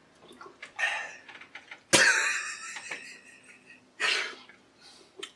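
A man coughing and clearing his throat, choking on water that went down the wrong way: three coughs about one, two and four seconds in, the one at two seconds the loudest and sharpest.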